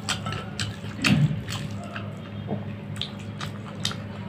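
Wet, squishy eating sounds: fingers mixing rice with curry on a plate, and chewing, with irregular clicks and a louder smack about a second in. A steady low hum runs underneath.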